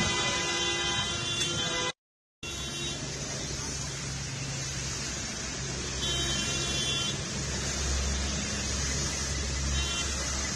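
Street traffic on a wet road: a steady wash of traffic noise with car horns honking, a long honk in the first two seconds, another about six seconds in and a short one near the end. The sound cuts out completely for a moment about two seconds in.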